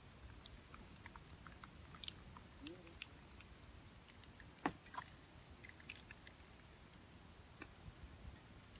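Near silence: quiet room tone with scattered faint clicks and ticks, and one sharper click about halfway through.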